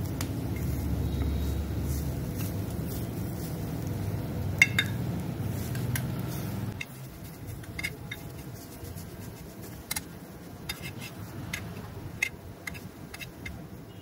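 Metal spoon clinking and scraping against a steel frying pan as it presses and breaks up crumbled boiled egg yolk, in scattered sharp clicks, several close together near the end. A low rumble runs underneath and stops about halfway through.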